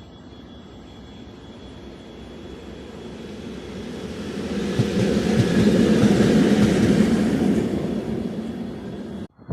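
Train led by a 2ES4K 'Donchak' electric locomotive passing by: rumble and rail noise swell to a peak about six seconds in, with a few sharp wheel knocks, then fade. The sound cuts off abruptly near the end.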